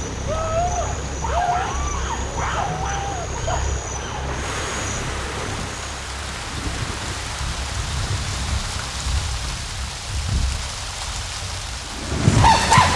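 Steady rain falling on forest leaves, an even hiss. A few short rising-and-falling calls sound in the first four seconds. Near the end a louder run of repeated calls begins.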